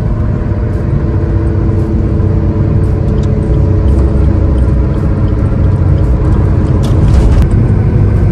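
Steady cabin drone inside a Maruti Suzuki car cruising at highway speed: a deep tyre and road rumble with an even engine hum. A brief rushing hiss comes about seven seconds in.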